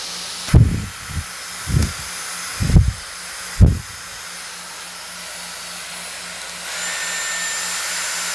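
Dyson Airwrap multi-styler running, a steady rush of air from its fan, with four low thumps in the first four seconds. About two-thirds of the way in, it steps up to a higher fan speed: the rush grows louder and a high, steady whine appears.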